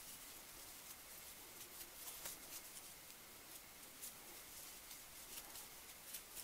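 Faint rustling and small irregular clicks of a 3.75 mm crochet hook working woollen yarn by hand, over a quiet hiss.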